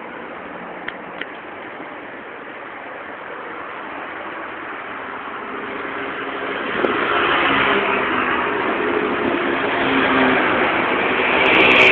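Road traffic: a steady rush of passing vehicles, growing louder from about six seconds in as an engine comes close. Two light clicks about a second in.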